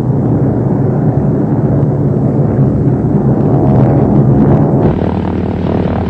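Several propeller planes with piston engines flying over in formation: a loud, steady engine drone that starts abruptly, its tone shifting slightly about five seconds in.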